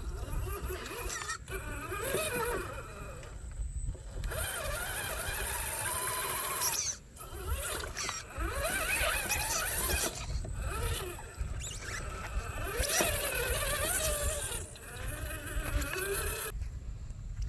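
Radio-controlled car's electric motor whining, its pitch rising and falling repeatedly as the throttle is worked, with bursts of rushing hiss.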